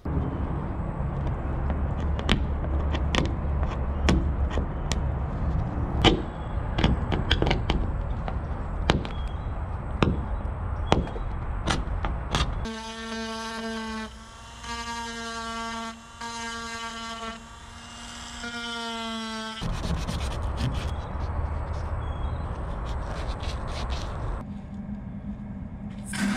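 Small handheld rotary tool with a sanding bit grinding fairing compound along carved hull trim: rough scraping noise with many sharp clicks. About halfway through it gives way to a steady pitched whine lasting about seven seconds that drops out briefly a few times, before the rough sanding returns.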